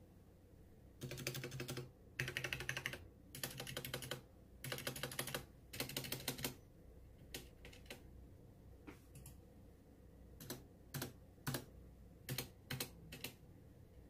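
Logitech G Pro mechanical keyboard with Romer-G switches being pressed: five quick bursts of rapid keystrokes, each under a second long, in the first half, then single key presses spaced out, about one or two a second, with no steady background.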